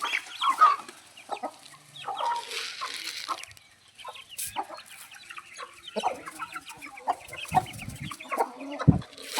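Parrot Beak Aseel chickens clucking, with many short calls scattered throughout and a couple of low thumps near the end.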